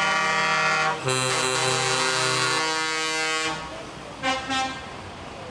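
A convoy vehicle's musical horn playing a run of held notes that step up and down in pitch, cutting off about three and a half seconds in, then two short horn toots.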